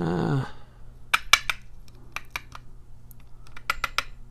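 Small metal lock pins and springs clicking as they are worked out of a padlock's pin chambers, a few sharp ticks in three quick clusters; the oily pins are sticking in the core.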